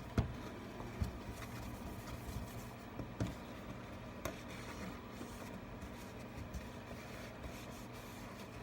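Faint rubbing and scraping on the opened iPad Pro housing, cleaning off leftover adhesive and debris, with a few small clicks and taps.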